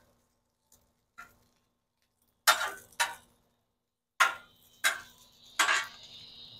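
Metal utensil striking and scraping the steel griddle top while spreading rice: five sharp clacks, the last ones leaving a brief metallic ring.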